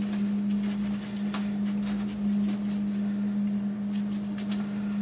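A steady low hum, with scattered light clicks and rubs of a hydraulic tube and its fitting being worked back and forth under a tractor to break it free.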